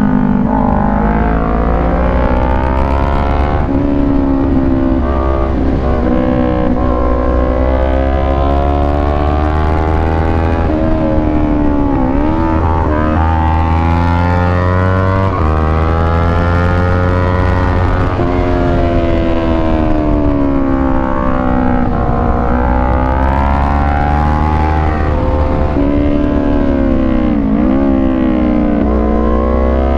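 Kawasaki Ninja 400's parallel-twin engine ridden hard, its revs climbing and falling again and again as the rider accelerates, shifts and rolls off through the bends, with steady wind noise underneath.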